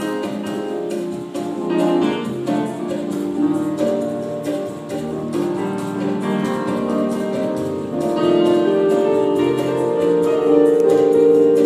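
Yamaha electronic keyboard being played: a continuous run of pitched notes and held chords. It grows louder about two-thirds of the way through.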